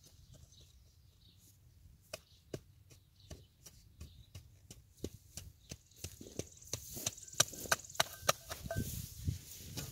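A long-handled garden hoe chopping into loose soil: a string of short, irregular strikes that come faster and louder in the last few seconds.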